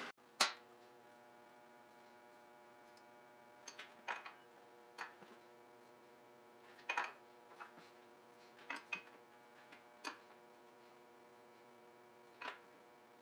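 Faint, irregular clicks and light taps, about ten of them, as the horizontal boring mill's spindle is turned by hand to sweep a dial test indicator around a bore when centring on it. A faint steady machine hum runs underneath.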